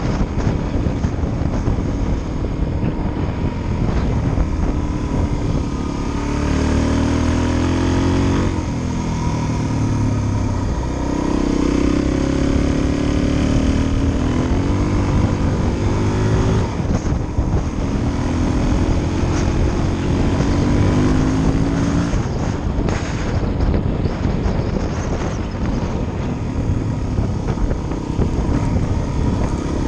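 Suzuki DR-Z400's single-cylinder four-stroke engine running under way, its pitch rising and dropping several times through the middle as the bike speeds up and shifts. Heavy wind noise on the microphone throughout.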